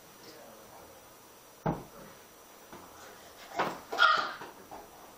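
A few sharp knocks: one about a second and a half in, then two close together near four seconds, the second with a brief squeak-like tone.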